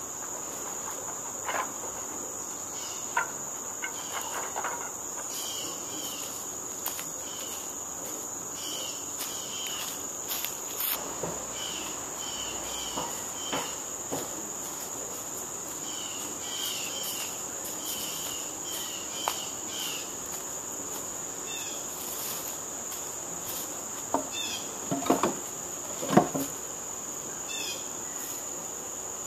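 Steady high-pitched chorus of insects trilling. A few sharp knocks of a hand tool striking scrap wood are scattered through it, the loudest a cluster near the end.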